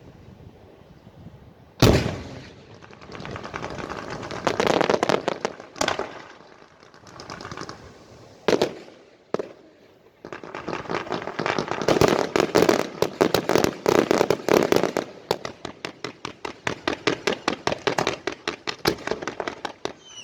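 Fireworks going off: a loud bang about two seconds in, followed by crackling and further scattered bangs, then from about halfway a long rapid run of sharp pops, several a second, like machine-gun fire.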